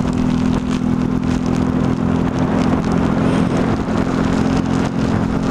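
Motorcycle engine running at a steady speed while riding, its pitch holding level, over a steady rush of wind and road noise.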